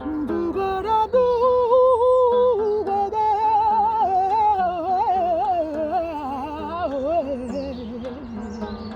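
A voice singing a long wordless melody with wide vibrato over an instrumental accompaniment: it holds a high note for about a second and a half, then winds slowly downward to a low note near the end.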